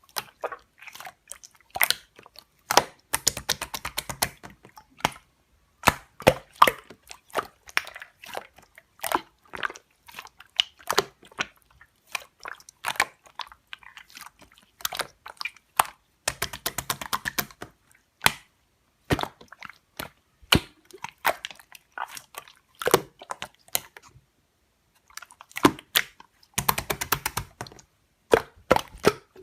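Slime being squeezed and worked by hand: sticky, wet clicks and small crackling pops in bursts, with a few short pauses between them.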